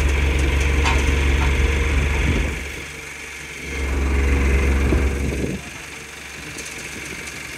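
Forklift engine running, its throttle raised and let off as the forks are inched forward: the engine note falls back for about a second midway, picks up again, then drops to a lower idle near the end.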